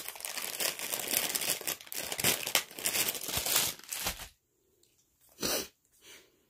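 Close crinkling and rustling of a crinkly material being handled, dense for about four seconds, then one short rustle about a second later.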